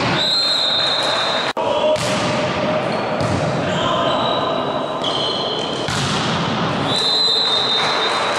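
Sound of an indoor volleyball match in a sports hall: a steady wash of crowd and player voices with ball and court noise, and several high whistle-like tones lasting about a second each, one at the start, two in the middle and one near the end.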